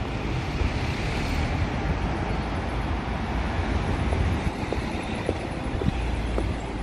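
Steady rumble of city street traffic, with a few faint clicks in the second half.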